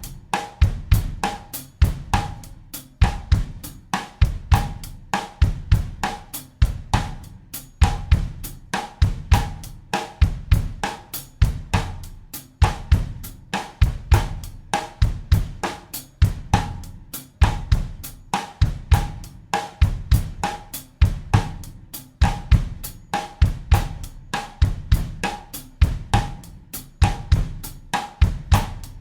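Acoustic drum kit playing a bossa nova groove at 100 beats a minute in 4/4. Bass drum, snare, hi-hat and cymbal strokes repeat in an even, steady pattern.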